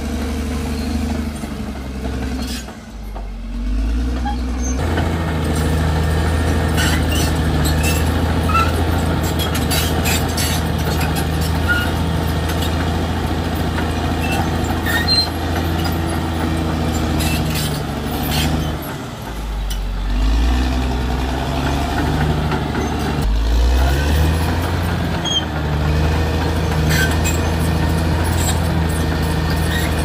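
Caterpillar D6R XL bulldozer's diesel engine running steadily as the machine pushes earth and brush with its blade, with clanking from its steel tracks. The engine note falls away briefly twice, about three seconds in and again near twenty seconds, then picks back up.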